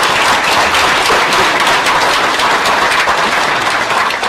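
Audience applauding loudly, a dense steady clapping that starts to fade near the end.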